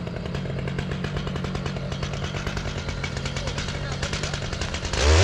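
Two-stroke chainsaw engine running steadily with an even, rapid pulsing. A loud voice cuts in at the very end.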